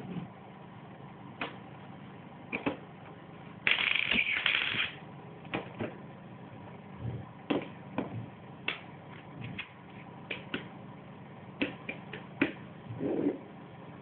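Magnetic building-toy rods and steel balls clicking as they snap together and are handled, in scattered single clicks. There is a denser rattle lasting about a second, about four seconds in.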